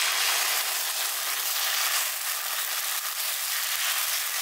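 Dosa batter of rice and arrowroot sizzling with a steady hiss on a hot cast-iron tawa as it is ladled on and spread in circles.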